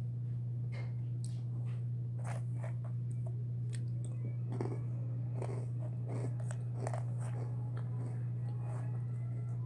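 A person chewing and biting food close to the microphone, with irregular short crunchy, moist clicks. A steady low electrical hum runs underneath and is the loudest thing.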